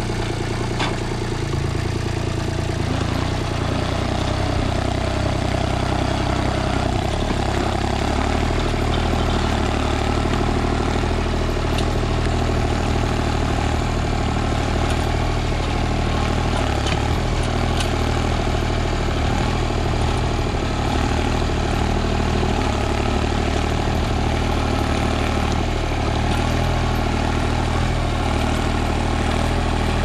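Sonalika GardenTrac DI-20 mini tractor's diesel engine running steadily under load as it pulls a mouldboard plough through the soil, a little louder after a few seconds.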